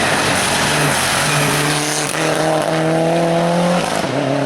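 Race car engine at high revs, accelerating up through the gears. Each stretch of engine note holds or climbs in pitch, then breaks off briefly and drops back at the next shift, about four seconds in.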